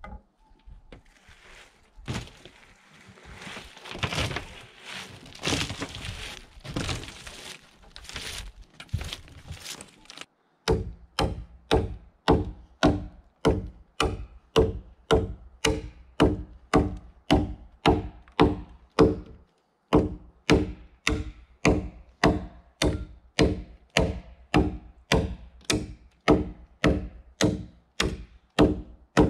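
Axe chopping into a pine log. For the first ten seconds the blows are irregular and splintery, with wood chips cracking off. After an abrupt change they become a steady run of sharp blows, about two a second.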